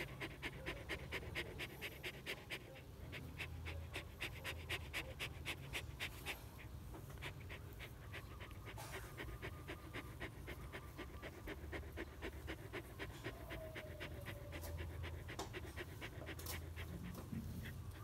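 Young dog panting quickly and evenly with its mouth open while lying at rest, each breath a short huff. The panting is strongest in the first few seconds.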